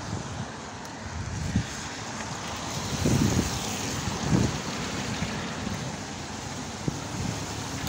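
Steady hiss of BMX tyres rolling on wet tarmac, with wind buffeting the microphone in gusts about three and four seconds in.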